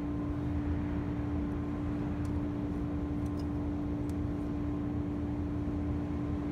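A steady one-pitch drone over a noise haze, with a few faint light clicks as a helicoil thread insert is turned down by hand into a tapped bolt hole.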